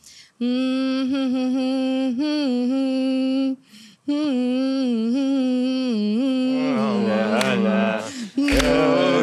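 A woman humming a song melody into a microphone with her mouth closed, in long held notes with small bends, in two phrases split by a short breath. Near the end a low beat and other voices come in.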